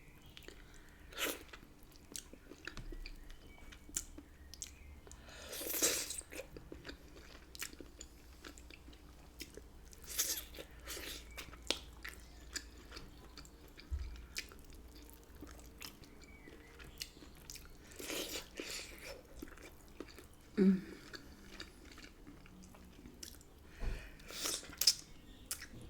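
A person chewing and biting into rotisserie chicken in butter sauce: wet mouth clicks and smacks, with a few louder bites scattered through, over a faint low hum.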